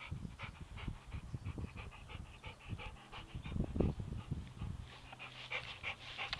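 Labrador retriever panting fast, about four breaths a second, with a soccer ball held in its mouth, over low rumbles that are loudest a little before four seconds in.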